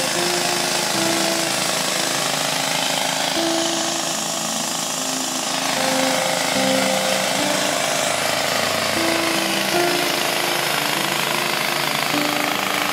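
Homemade gold trommel and sluice running: a steady, rough rattle of gravel and water through the rotating drum. A simple melody of background music plays over it.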